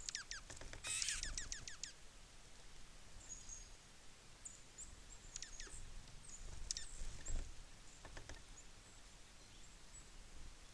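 Small songbirds at a feeder: a quick run of high, downward-sliding chirps in the first two seconds, then scattered short high chirps, with a few soft low thumps.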